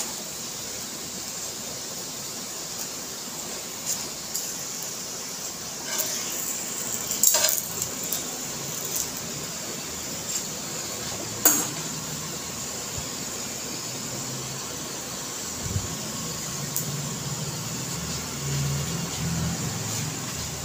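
Paratha frying in oil on an iron tawa: a steady sizzle, with metal tongs clicking against the tawa a few times, loudest about 11 seconds in.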